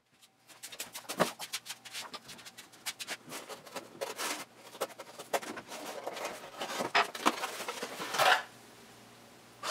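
A small cardboard box being opened by hand: rapid crinkling, scratching and handling noises of cardboard and packing, with two longer tearing rasps.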